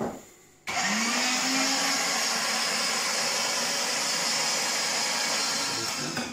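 Electric meat grinder switched on about a second in: its motor spins up with a rising hum and then runs steadily while grinding vegetables such as carrot, cutting off near the end.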